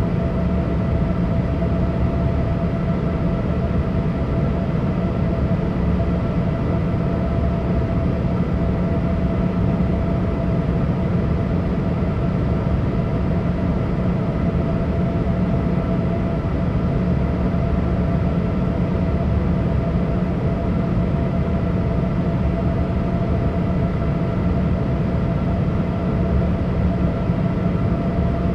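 Steady cabin noise inside a Boeing 787 airliner: a constant low drone of engines and airflow with a few faint steady hums, unchanging throughout.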